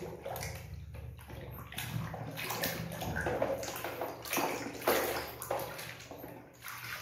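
Soapy water sloshing and swishing in a plastic basin as a hand scrubs a plastic toy under the foam, in irregular repeated surges.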